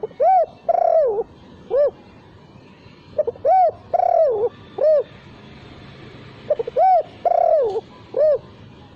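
Spotted dove cooing: three repeated phrases about three seconds apart, each a short lead-in note followed by rounded coos, one of them drawn out, ending on a short coo. The phrases end without the closing 'kuk' note.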